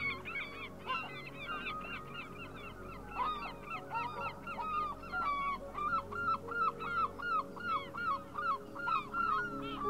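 A flock of birds honking: a dense run of short goose-like calls that gets louder and more regular, about two to three a second, from about three seconds in.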